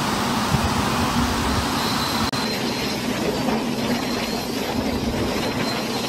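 Storm wind and heavy rain blowing in a steady, loud rush, the gusts buffeting the microphone. The sound drops out for an instant about two seconds in.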